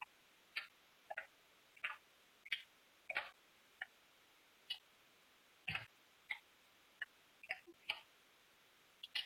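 Computer keyboard being typed on: single key clicks at an uneven pace, about two a second, with short pauses between.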